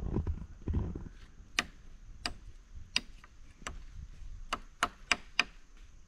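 A knife blade knocking against a forked tree branch. It gives about nine sharp, irregular clicks, which start about a second and a half in.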